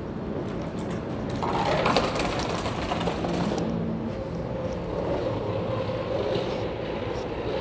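Metro station ambience: a steady mechanical rumble and hum, with a few sharp knocks about one and a half to two seconds in.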